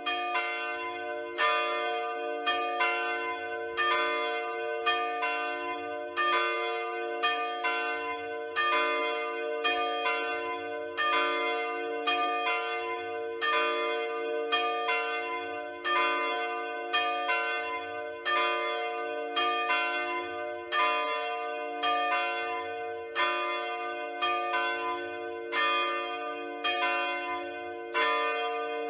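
Church bells ringing in a steady, even sequence of strokes, the lower tones of the bells ringing on underneath.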